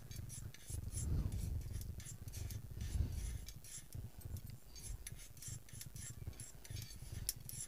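Cumin and nigella seeds being stirred and scraped around a small steel tadka pan as they finish roasting over the gas flame: an irregular run of light scraping and clicking.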